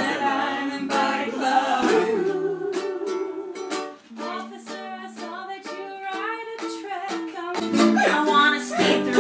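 Ukulele playing a song, with strummed chords and picked notes and no lyrics sung, in a small room.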